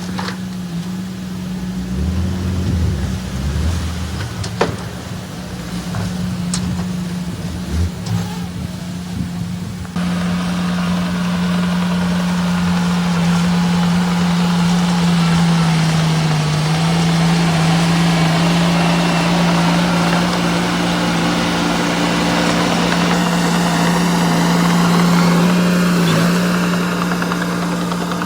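Small bulldozer's diesel engine running steadily, with a few sharp clanks in the first third. About a third of the way in the sound jumps suddenly to a louder, harsher running with more rattle and hiss. The engine pitch dips briefly near the middle, as if under load.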